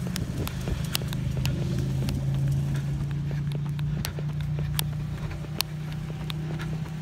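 Motorcycle engines idling with a steady low note, loudest a couple of seconds in and easing off toward the end, over the runner's own footsteps on pavement, about two a second.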